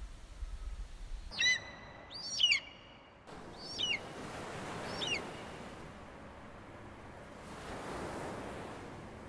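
Gulls calling: several short, falling cries in the first half, over the wash of surf that comes in about three seconds in and swells twice.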